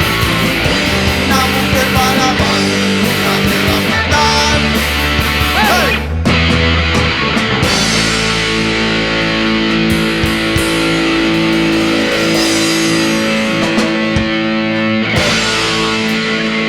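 Rock band playing an instrumental passage led by guitar, with no singing.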